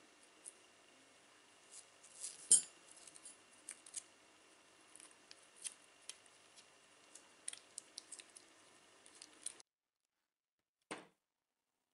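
Small clicks and rustles of masking tape being pressed and folded onto the metal jaws of an adjustable wrench, with one sharper click about two and a half seconds in. The sound drops out to dead silence after about nine and a half seconds, broken by one short click.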